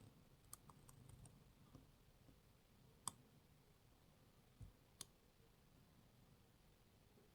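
Faint, sparse clicks from a lock pick and tension tool working in a CES pin lock: a few light ticks in the first second or so, a sharper click about three seconds in, then a dull knock and another click near five seconds.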